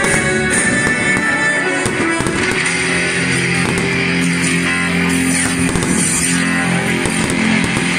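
Rock music with electric guitar, growing fuller about two seconds in.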